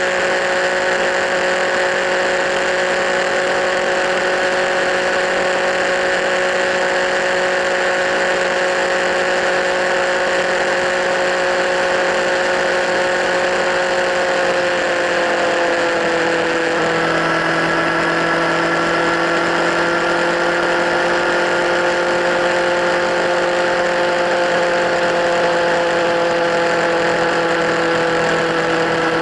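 Kawasaki Z1000 inline-four engine running steadily through LeoVince slip-on exhausts. The engine note drops slightly in pitch about halfway through, then holds steady.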